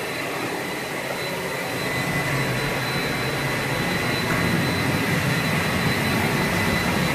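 Home-built forced-air gas forge burner running steadily: a loud, even rush of burning gas and blown air, with a faint high steady whine.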